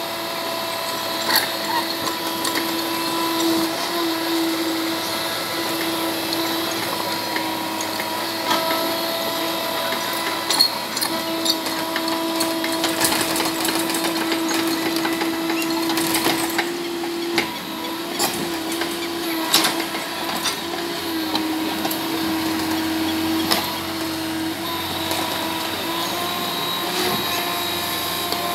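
IHI mini excavator's diesel engine running steadily, its pitch shifting a little as the hydraulics take load, with irregular clatter and knocks from the bucket and dozer blade scraping through earth and stones.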